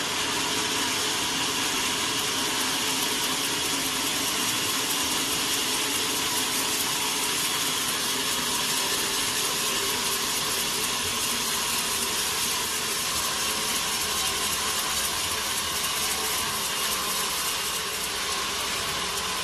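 Sawmill machinery running steadily, a constant even noise with no pauses or breaks.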